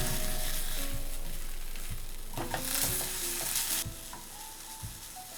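Sparse held notes of a film score stepping between pitches, with soft low pulses, over a steady hiss that swells into a brief louder rush about two and a half seconds in.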